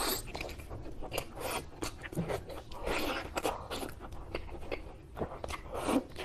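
A man eating: biting into and chewing a mutton leg piece with rice, heard as a run of irregular mouth clicks and smacks.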